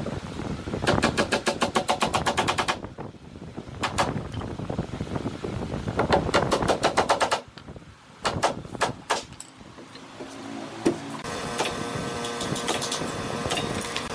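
Claw hammer tapping a small nail into a hardwood cabinet door frame: two quick runs of light, rapid blows, then a few single taps. A steady hum with several tones sets in near the end.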